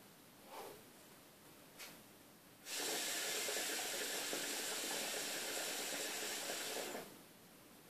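A long draw on a Kaya PNG550 shisha: a steady hiss of air pulled through with water bubbling in the base, starting a little under three seconds in and stopping abruptly about four seconds later. Before it, two faint soft breaths.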